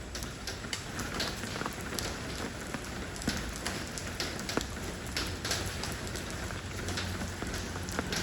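Steady rain falling on stone, with a continuous hiss and many separate drops pattering and splashing close by.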